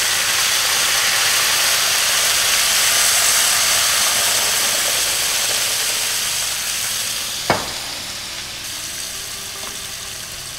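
White wine hissing and sizzling as it hits a hot skillet of browned mushrooms, deglazing the pan. The sizzle swells over the first few seconds, then slowly dies down, with a single sharp knock about seven and a half seconds in.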